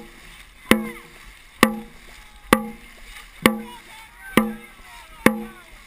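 Dragon boat drum beaten at a steady pace, about one stroke every 0.9 seconds, six beats in all, each with a ringing low boom. Between the beats the crew's paddles splash through the water.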